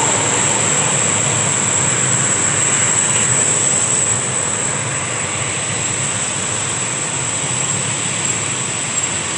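Diesel engine of a Jetbus 5 tour bus running close by under load: a steady low rumble with hiss, easing a little after about four seconds.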